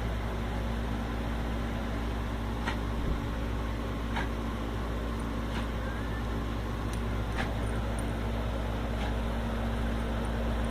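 Steady low mechanical hum, like a motor or fan running, with a few faint short clicks scattered through it.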